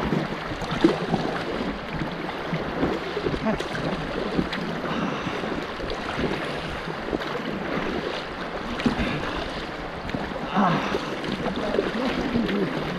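Fast river water rushing and splashing close by, with irregular small splashes and knocks against an inflatable kayak.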